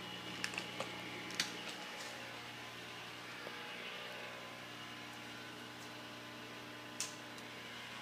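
Steady low hum of running aquarium equipment, with a few sharp clicks about half a second to a second and a half in and one more near the end.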